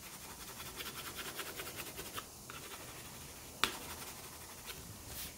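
Dark brown crayon shading on paper: a fast run of quick scratchy strokes, easing off about two seconds in, then fainter strokes, with a single sharp tick about three and a half seconds in.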